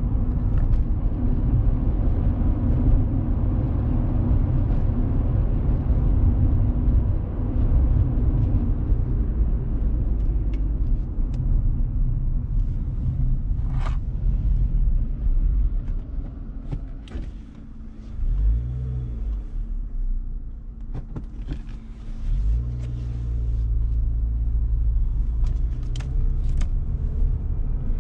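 Car running along the road heard from inside the cabin: a steady low engine and road rumble that dies down for a few seconds past the middle and then picks up again, with a few light clicks.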